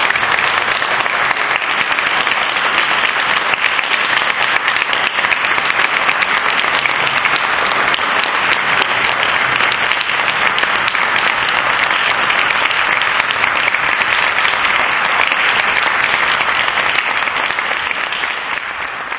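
Audience applauding: many hands clapping in a dense, steady stream that begins to fade out near the end.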